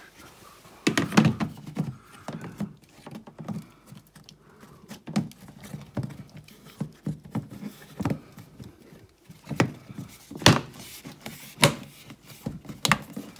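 Irregular knocks, clicks and clunks of a car part and tools being handled as the part is fitted back into place. The loudest clunk comes about a second in, and several more come near the end.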